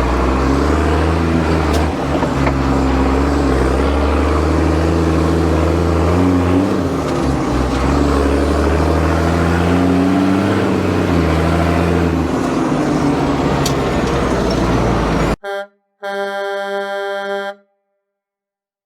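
A vehicle engine running loudly, its pitch rising and falling several times, then cutting off suddenly. It is followed by a short toot and a longer pulsing horn-like blast.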